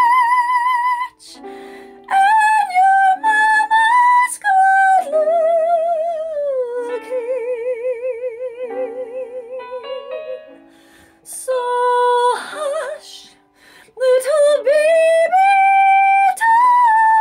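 Soprano singing high held notes with a wide vibrato over a held-chord accompaniment. Midway the singing drops out for several seconds while a lower, quieter melody with vibrato carries on, then the voice comes back loud and high.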